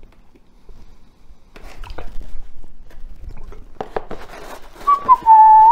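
Eating and handling pizza crust, with soft crackles and clicks. Near the end comes a loud, high squeal of under a second that dips slightly in pitch.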